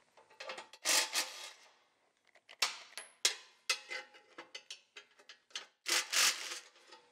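Cordless power driver run in several short bursts, backing bolts out of a plate on a Koenders windmill compressor.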